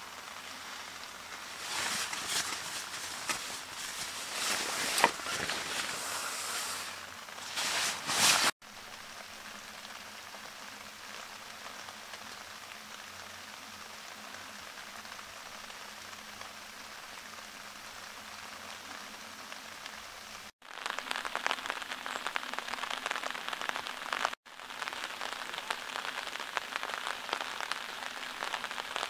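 Nylon fabric rustling as a stuffed sack is handled inside a tent. After a cut comes steady rain pattering on a Naturehike Hiby 3 tent's fly and the wooden deck around it, turning to a denser, crackly patter of drops on the fly for the last several seconds.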